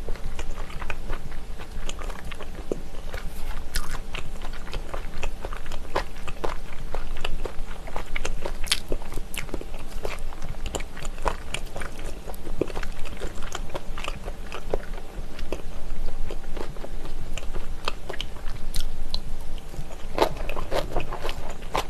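Close-miked mouth sounds of someone chewing spicy pressed chicken-feet slices and kimchi: wet chewing with many small crunches and clicks, denser near the end.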